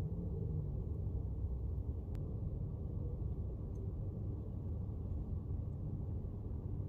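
A steady low rumble of outdoor background noise with no distinct events, and one faint click about two seconds in.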